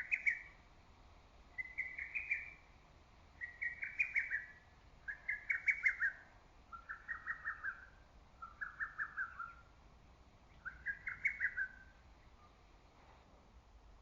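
Lesser cuckoo singing its loud, clipped song phrase over and over, seven times, each phrase a quick run of notes.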